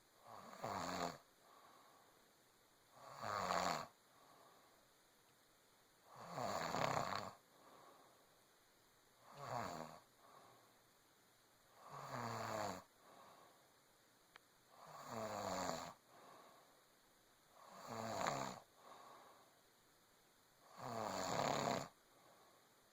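A pregnant woman snoring in a steady rhythm, one snore about every three seconds, eight in all.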